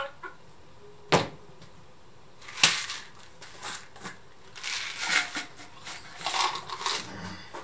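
Two sharp knocks, about one second and two and a half seconds in, as a phone and a plastic drink bottle are handled; then a run of plastic crinkling and rustling as the bottle is opened and drunk from.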